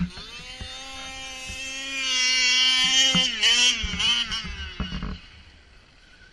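Radio-controlled truck's motor running under throttle as it drives across snow: the pitch climbs at the start, holds steady, wavers up and down, and fades away about five seconds in.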